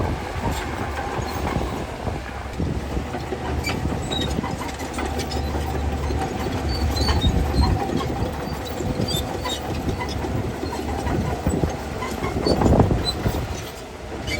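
Bulldozer's diesel engine running, with its steel crawler tracks clanking and rattling; the rumble swells briefly near the end.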